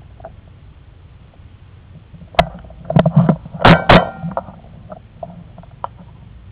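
A burst of sharp knocks and thumps, with two very loud, close-together cracks about three and a half seconds in, over low rustling.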